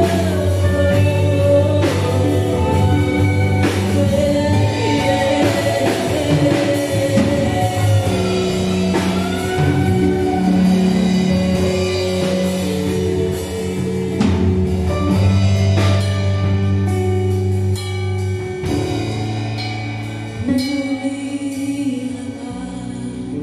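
Live band playing a song: drum kit, electric bass and guitars, with women singing lead. The music gets somewhat quieter near the end.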